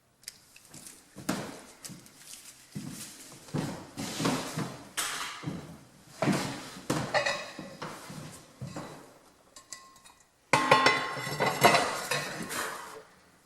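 Metal clanking and scraping: a string of knocks every half second or so, then a louder run of ringing metal strikes about ten and a half seconds in.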